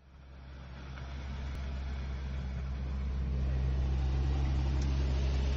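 A steady low rumble with a deep hum fades in over the first two to three seconds and then holds level.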